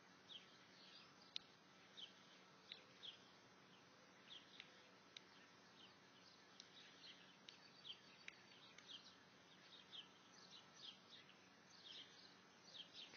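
Faint birdsong: many short, high chirps several times a second, with a few sharp ticks, over a quiet steady background.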